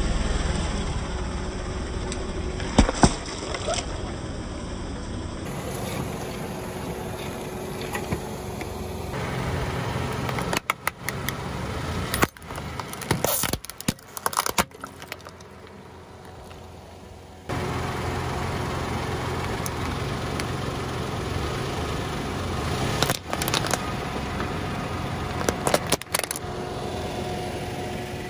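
Car engine idling as the car creeps forward and its tyre crushes objects on asphalt: a watermelon, then plastic tubs of slime. The crushing gives several sharp cracks and pops at intervals, with a cluster of them partway through.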